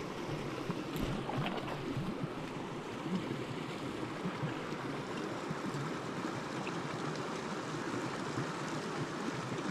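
Small rocky mountain creek running: a steady rush and babble of water flowing over stones close by.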